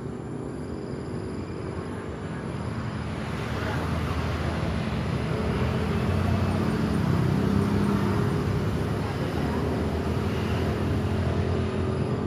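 Road traffic noise: motor vehicles running, growing louder about four seconds in.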